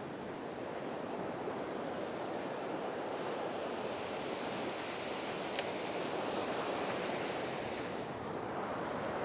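Steady wash of ocean surf breaking on a sandy beach, with a single short, sharp click a little past halfway.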